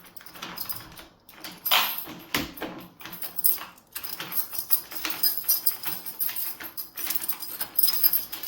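Keys and a door lock being handled: irregular metallic clicks, rattles and scrapes.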